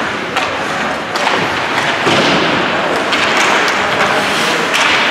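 A few sharp knocks and thuds, about five, scattered over a steady wash of crowd and arena noise.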